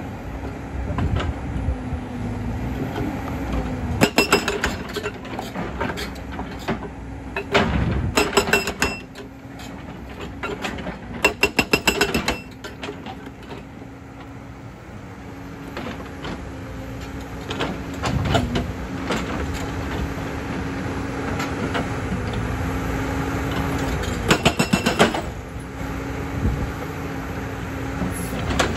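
Hydraulic rock breaker on a JCB tracked excavator hammering stone in four short bursts of rapid blows, over the excavator's diesel engine running steadily.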